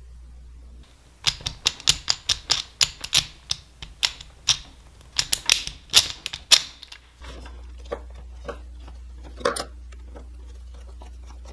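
Rusty gears of a vintage hand drill clacking in a quick, uneven run of sharp clicks for about six seconds as the drill is handled and cranked. Later come a few single metal taps as a screwdriver touches the crank arm.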